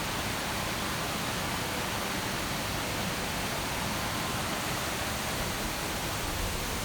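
Steady, even rush of water in a mountain gorge, its hiss spread from low to high pitches.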